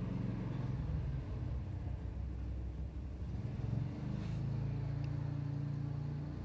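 A steady low hum with a few even tones, shifting slightly about four seconds in.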